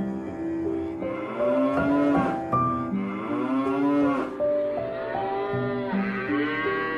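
Cow mooing: a few long moos that rise and fall in pitch, over background music.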